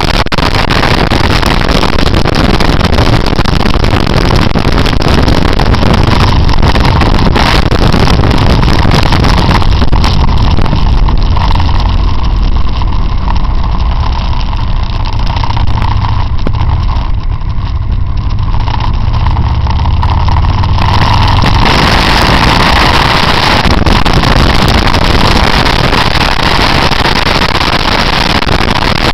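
Motorcycle running along a winding road, its engine a low drone under a loud rush of wind and road noise. For about ten seconds in the middle the hiss falls away and the engine drone stands out, then the rush returns.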